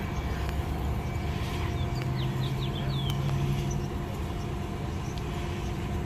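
Battery-electric transit bus humming steadily, several steady tones over a low drone. A bird chirps a few times around the middle.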